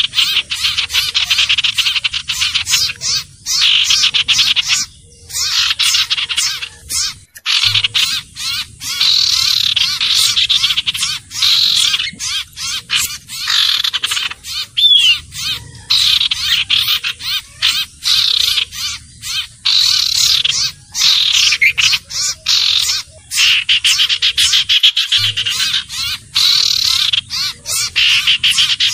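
Sirtu (cipoh, common iora) bird lure recording: fast, chattering trills of rapidly repeated high notes in long runs broken by short pauses, over a low background rumble.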